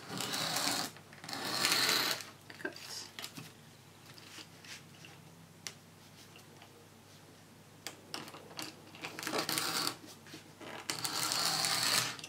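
Sliding paper trimmer's cutter head drawn along its rail, slicing strips of wafer paper: four scraping strokes, two near the start and two near the end, with small clicks and paper rustles between them as the sheet is moved.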